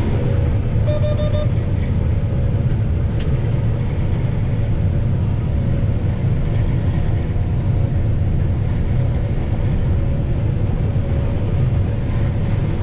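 A 2013 John Deere S660 rotary combine running steadily while harvesting soybeans: a deep continuous drone with a faint steady whine over it. A short burst of rapid clicks comes about a second in.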